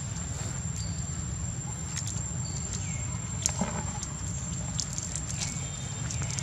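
Outdoor ambience: a steady low rumble and a constant thin high whine, with scattered soft clicks and crackles and a few short high chirps that dip in pitch.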